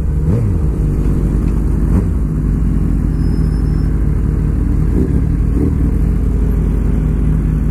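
Suzuki GSX-R sport bike's inline-four engine heard from the rider's position at low revs, with two short rises in pitch in the first two seconds, then a steady low note as the bike slows and sits at idle.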